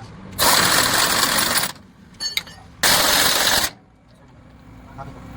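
Pneumatic impact wrench run in two bursts of about a second each, rapid hammering on leaf-spring nuts, with a few sharp metal clicks between the bursts.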